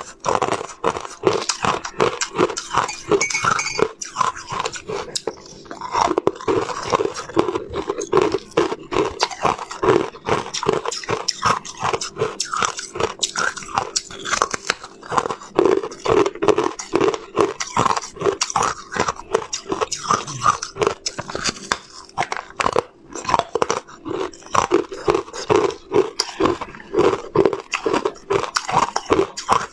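Close-miked biting and chewing of carbonated (aerated white) ice: a dense run of crisp crunches, several a second, as the porous ice breaks between the teeth, with short lulls.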